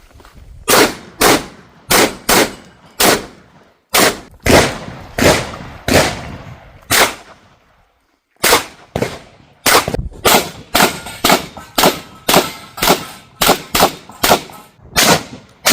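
Shotgun firing a long string of rapid shots, about one every half second, with a short pause around eight seconds in before a faster string resumes.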